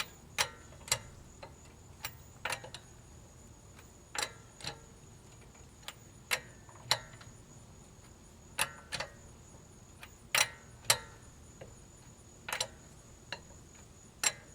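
Hand wrench on a car's lug nuts as they are tightened: sharp metallic clicks, mostly in pairs about half a second apart, with a new pair roughly every two seconds.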